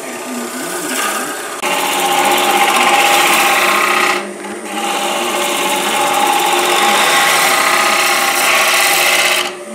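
Turning tool cutting into a cedar blank spinning on a Grizzly G0733 wood lathe at about 950 rpm, rounding the end of a sphere: a steady scraping cut over the lathe's hum. It starts about a second and a half in, breaks off briefly near four seconds, and stops just before the end.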